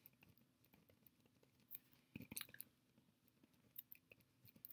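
Faint, short scratches of a ballpoint pen writing on paper, mostly about two seconds in and again near the end.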